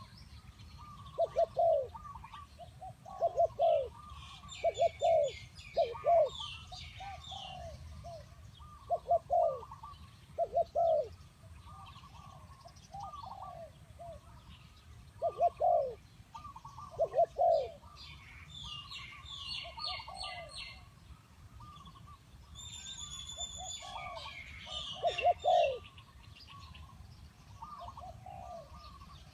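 Spotted doves cooing: low, downward-curving coos in groups of two or three, repeated every couple of seconds, with bursts of higher chirping from small birds over them.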